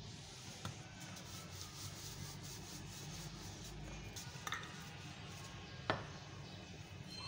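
Hands pressing and smoothing a coiled lachha paratha dough spiral flat on a stone counter: faint rubbing, with a few light taps, the sharpest about six seconds in, over a low steady hum.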